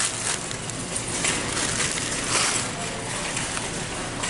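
Plastic-wrapped candy bags rustling and crinkling as they are handled, a continuous crackly rustle with small scattered crackles.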